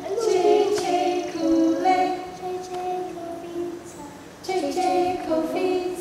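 A group of children and women singing a song together, holding long notes, with a short dip about four seconds in.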